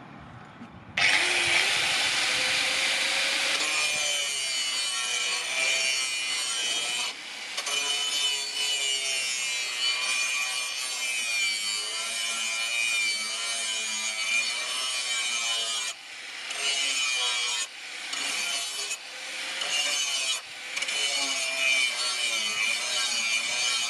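Angle grinder with an abrasive disc grinding the steel of a leaf-spring blade: a loud, high grinding whine whose pitch wavers as the disc is pressed into the steel. It starts about a second in and drops off briefly several times as the disc is eased off the blade.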